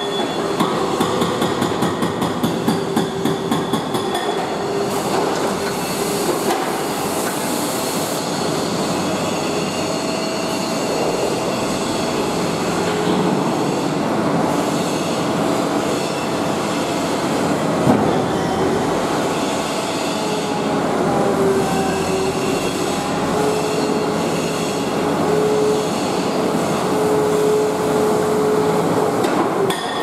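Hydraulic breaker on an Atlas wheeled excavator hammering a brick wall, the blows coming fast and even for the first four seconds, then merging into a dense steady clatter. A steady pitched whine runs through it, along with the excavator's engine.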